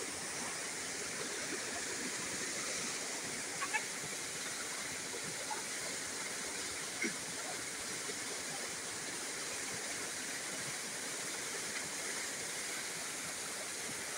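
Shallow rocky forest stream running: a steady rush of water over stones, with two brief, sharper sounds about four and seven seconds in.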